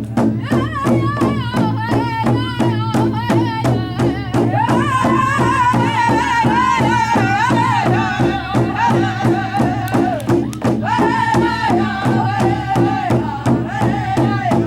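A drum beaten in a steady rhythm, about four beats a second, with a high voice singing a wavering, sliding melody over it.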